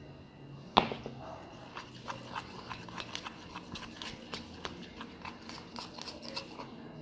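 Spoon stirring a sticky mixture of white glue, red paint and glitter for slime, giving many short wet clicks and squelches, with one sharp loud knock against the container about a second in.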